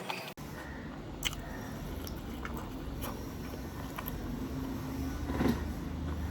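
A person eating: soft chewing and small wet clicks of food in the mouth, with a steady low hum in the background.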